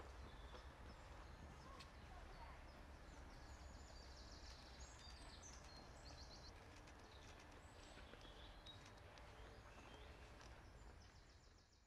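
Faint outdoor ambience: a steady low rumble with a few short, high chirps and trills scattered through it.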